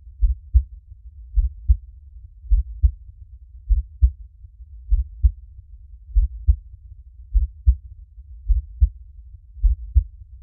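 Heartbeat: steady low double thumps (lub-dub), one pair about every 1.2 seconds.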